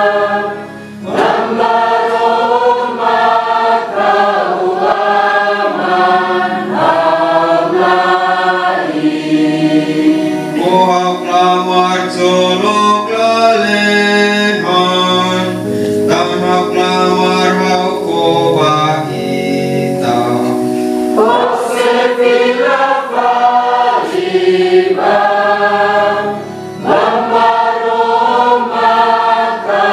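Church choir singing the responsorial psalm in phrases. A stretch of long chords, several voices held together in harmony, comes in the middle.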